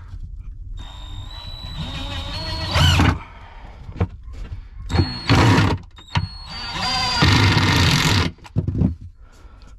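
Power drill driving screws into a timber batten, in three runs: a motor whine that steps up in pitch over about two seconds, a short burst in the middle, then a longer run of about two seconds.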